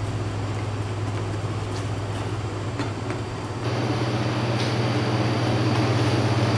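Steady low hum of a commercial kitchen's exhaust hood fan, a little louder from about three and a half seconds in.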